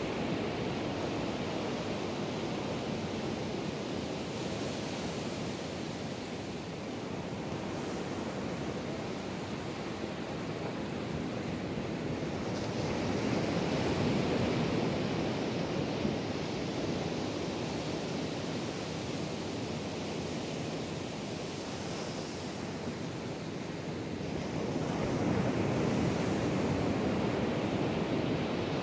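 Atlantic Ocean surf breaking and washing up the beach: a steady rushing that swells louder twice, about halfway through and near the end, as bigger waves come in.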